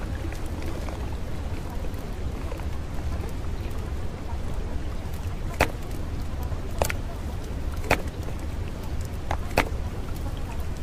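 Steady rain-like rushing noise with a deep rumble underneath, broken in the second half by a handful of sharp ticks like drops.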